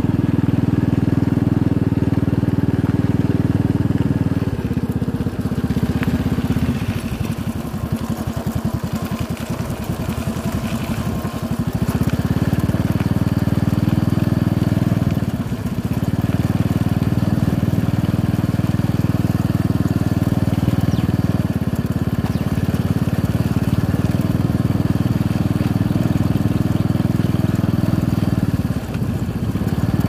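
Motorcycle engine running steadily as it is ridden along a dirt track. The engine note eases off between about five and twelve seconds in, breaking into slower even pulses, then picks back up, with short dips about halfway and near the end.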